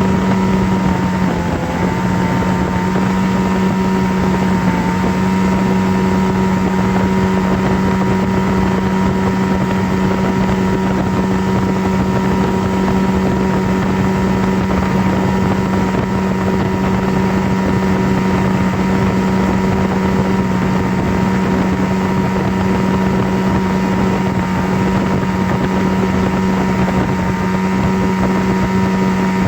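A steady, unchanging motor drone: a low hum with a noisy rush over it.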